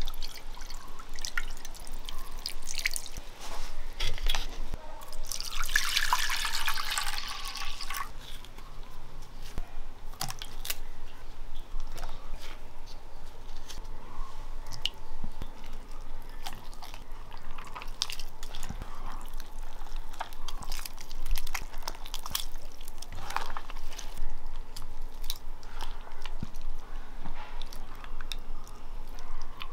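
Water dripping, with many scattered small clicks and taps, and a brief noisy burst lasting about two seconds, about six seconds in.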